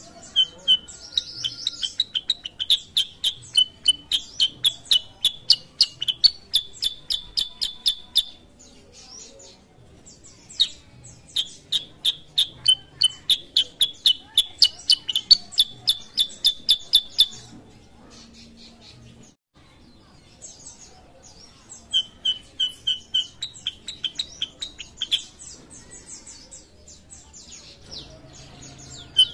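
Black-headed bulbul (kutilang sutra) singing rapid runs of repeated chirps, about four a second, in long bouts of several seconds with short pauses between.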